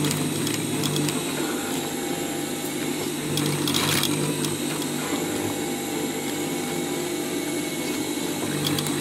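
Sewing machine running and stitching heavy canvas slowly around a curved edge, a steady mechanical hum with rapid needle strokes. A brief rustling noise comes about four seconds in.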